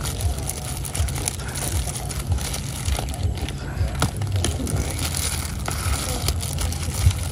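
Kitchen shears cutting through crispy roast pork belly, the puffed crackling skin giving a string of short sharp crunches and crackles.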